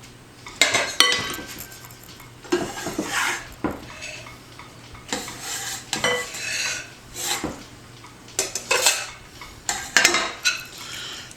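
Utensil clinking and scraping against a bowl in irregular knocks and scrapes, as grated cauliflower stem is scraped into coleslaw dressing.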